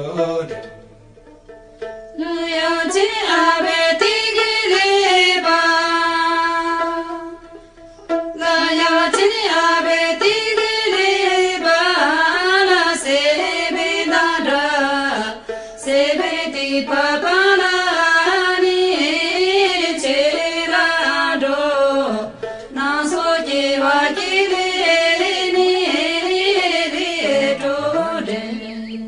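A song: a singing voice over instrumental backing, starting about two seconds in after a brief lull, with a second short break around the eighth second.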